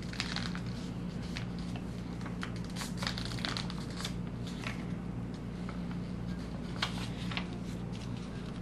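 Paper airplane paper being folded and creased by hand: scattered short crinkles and rustles over a steady low hum.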